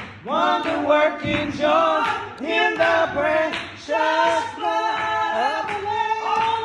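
A woman singing a gospel hymn into a microphone over her own piano playing, with sliding, arching notes and no clear words. Near the end she holds one long note.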